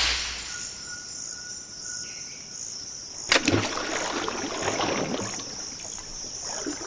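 Rubber tree seed pod bursting open with a sharp crack, then about three seconds later a nut splashing into water, the splash trailing off over a few seconds. Insects chirr steadily throughout.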